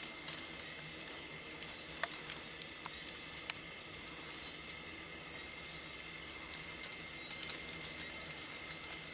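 A large swarm of beetles in a tree buzzing steadily, like a swarm of bees, under a high hiss, with a few faint clicks.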